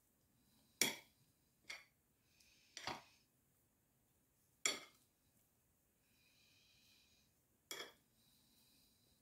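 A metal table knife clinking and scraping against an oval china serving dish while spreading a layer of grated potato. There are five sharp clinks, with softer scraping between them.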